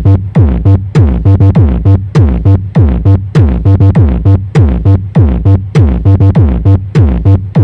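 Loud electronic dance music played back for a sound-system sound check: a fast, driving beat of heavy bass drum hits, each dropping sharply in pitch, over synthesizer bass.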